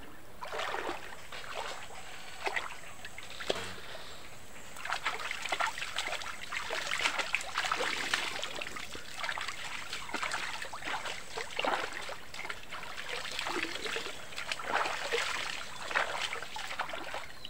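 River water splashing and trickling as someone bathes in it, with irregular splashes throughout that are thickest in the middle.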